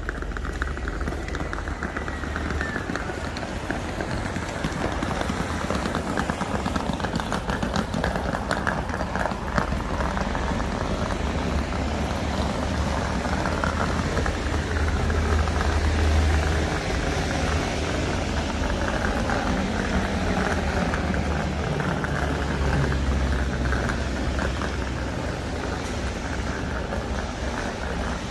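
City-centre street ambience: a steady low rumble of traffic with the general noise of the street. The rumble swells twice, around the middle and again later, as vehicles pass.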